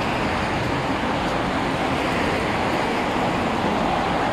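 Steady road traffic noise on a city street, with cars and a minibus driving past.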